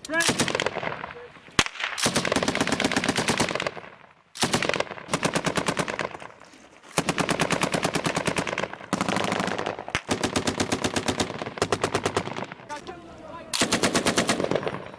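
Automatic gunfire: a series of long bursts of rapid, evenly spaced shots with short pauses between them, and a single sharp shot about a second and a half in.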